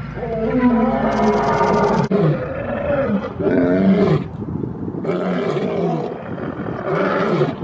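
Male lions roaring: a series of calls, each about a second long, bending up and down in pitch.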